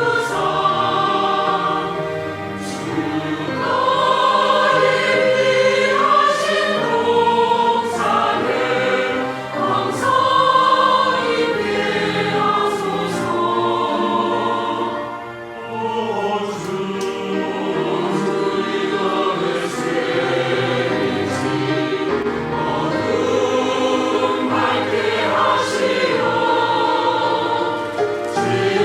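Church choir singing, with sustained, changing chords and a brief drop in level about halfway through.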